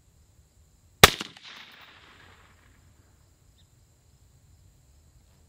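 A single suppressed rifle shot about a second in: a 16-inch-barrelled MI-15F AR-15 fitted with a Griffin Optimus suppressor, firing Fiocchi 55-grain .223. The shot is followed by its echo rolling away across the range for over a second.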